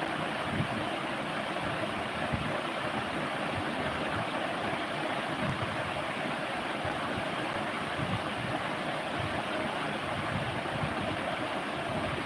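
Steady rushing noise of a ceiling fan running, its airflow buffeting the microphone with low, uneven rumbles.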